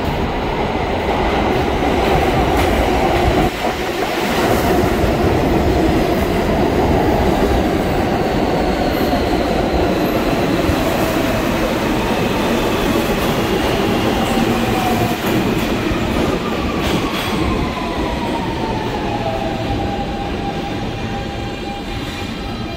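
R160 New York City subway train running into the station along the platform, with loud steady wheel-on-rail noise and clatter. Later, the traction motors' whine falls in pitch as the train slows.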